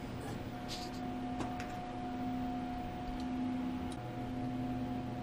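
Steady machine hum from workshop equipment, made of a low drone and a couple of higher steady tones that shift slightly about four seconds in, with a few faint light clicks.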